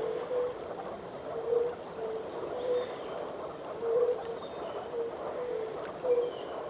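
A chorus of many short, low calling notes, overlapping in pairs and small groups, with faint high bird calls above and a steady hiss underneath.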